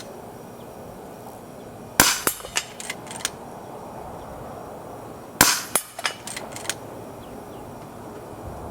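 Air rifle firing twice, shots about three and a half seconds apart, each sharp report followed by a quick run of smaller clicks.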